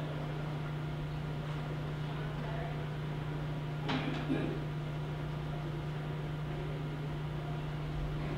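Steady low hum under quiet room tone, with one short soft noise about four seconds in.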